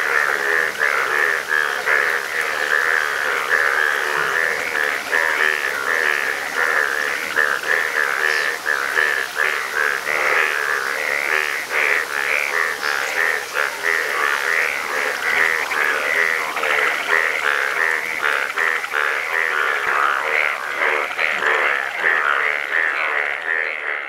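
A dense chorus of breeding male Indian bullfrogs calling together in a flooded pond, many loud overlapping croaks with no break, fading out at the very end.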